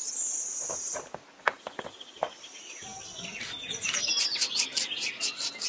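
Small gravel clicking as it is handled in a toy tractor trolley: a few separate clicks, then from about three seconds in a faster run of clicks and trickling as the gravel is scooped out with a small shovel, with high chirps alongside.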